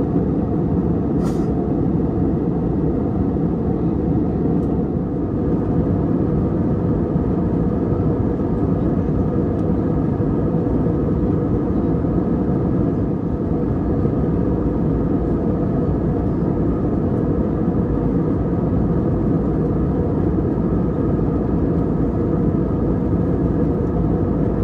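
Steady low cabin rumble of an Airbus A320 in flight, the noise of its CFM56 engines and the airflow over the fuselage, with a single brief click about a second in.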